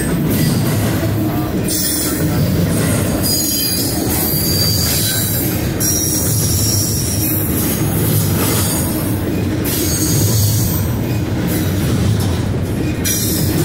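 Double-stack intermodal freight train rolling past close by: a steady rumble of wheels on rail, with a high-pitched wheel squeal that comes and goes.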